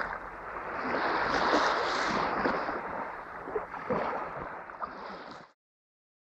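Shallow sea waves washing up over wet sand and pebbles at the shoreline: a steady surf hiss with small crackles, cutting off suddenly about five and a half seconds in.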